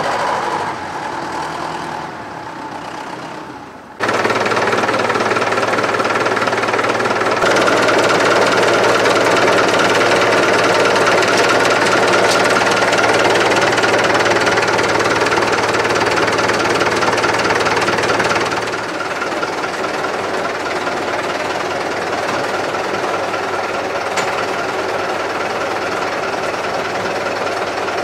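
A tractor engine fading as the tractor drives away, then, about four seconds in, a diesel tractor engine idling steadily. The idle gets a little quieter about two-thirds of the way through.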